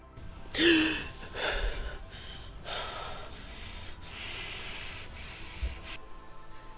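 A woman gasps sharply awake, the loudest sound, then takes several heavy breaths, the last one longer.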